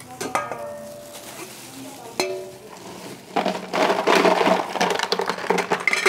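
Ice cubes being scooped with a plastic scoop out of a cooler bucket and tipped into a stainless steel bowl, a dense clatter and clink of ice from about three seconds in. Before that, a couple of knocks from the bucket's plastic lid.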